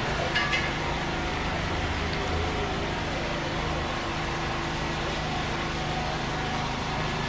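Steady drone of a large electric fan running, with a few faint clinks about half a second in.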